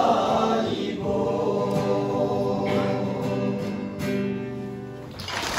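A small group of men singing a hymn together from song sheets, holding long notes. The last note fades out shortly before the end.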